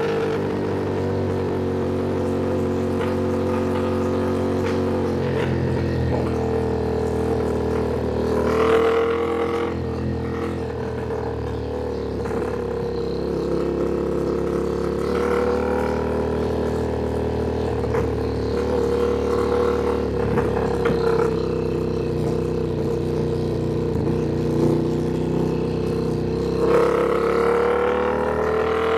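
Ducati Panigale V2's twin-cylinder engine running at a steady cruising speed, its pitch rising briefly with the throttle about a third of the way in and again near the end.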